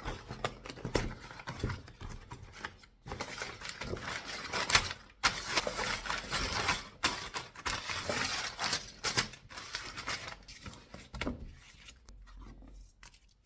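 A cardboard LEGO set box being opened and unpacked by hand: irregular rustling, scraping and tearing of cardboard and plastic, with scattered clicks and knocks. It quietens over the last second or so.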